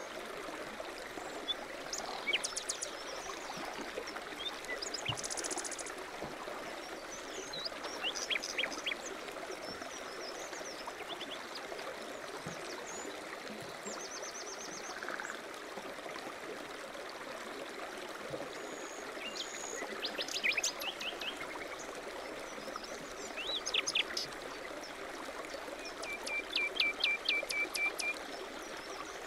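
Running water, a steady rush like a stream, with songbirds chirping and calling over it in short chirps and trills. Near the end comes a quick run of repeated notes.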